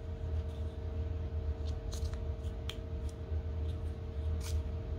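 Small fixed-blade knife and its hard plastic sheath handled in the hands: light scraping with a few sharp plastic clicks, about two seconds in and near the end.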